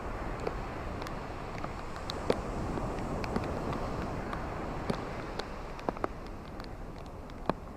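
Ocean waves washing on a shore: a steady rushing hiss that swells a little midway, with scattered small clicks and pops.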